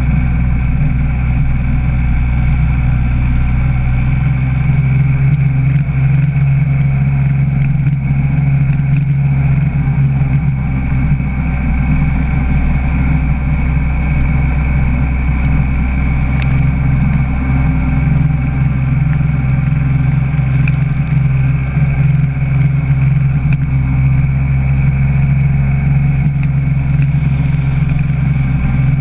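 Kawasaki SXR 800 stand-up jet ski's two-stroke twin engine running at a steady pace under way, loud and even throughout, over a rush of water noise.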